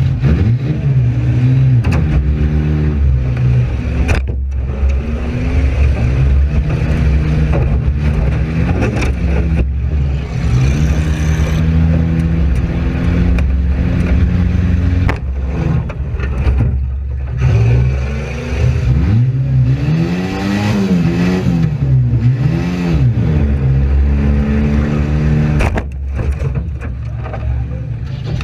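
Front-wheel-drive Oldsmobile demolition derby car's engine revving up and down hard as it is driven. Several sharp knocks and bangs are mixed in through the run.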